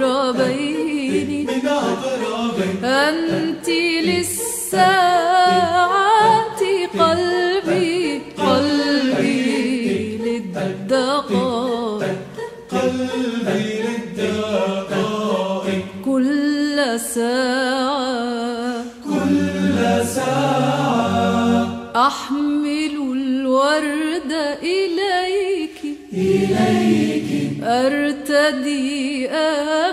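Choir singing an Arabic song a cappella, several voice parts in harmony, with short repeated notes in the low voices at times.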